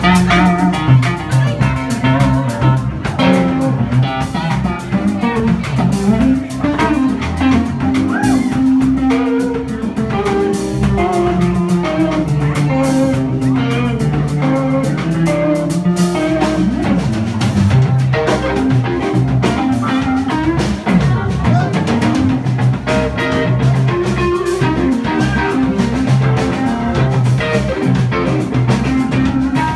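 Live band playing: electric guitar running melodic lead lines over electric bass and a drum kit.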